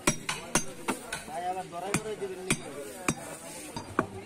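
A heavy butcher's cleaver chopping through beef onto a round wooden chopping block: about eight sharp knocks at uneven spacing, with a gap of about a second near the middle.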